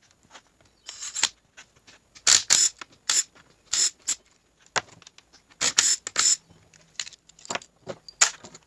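Metal hand tools and transmission parts clinking and scraping against each other, in a string of irregular clatters with short pauses between them.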